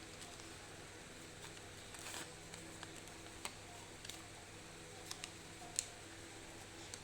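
Sheet of paper being handled and creased while folding a paper airplane: scattered faint clicks and taps, a short rustle about two seconds in and a sharper tick near the end, over a faint steady hum.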